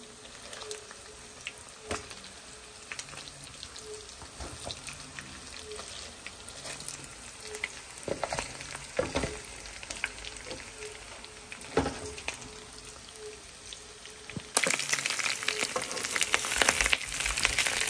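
Pork backbone pieces frying and browning in oil in a pan: a steady sizzle with crackles, and a spatula now and then scraping and knocking against the pan. The sizzle grows suddenly louder near the end.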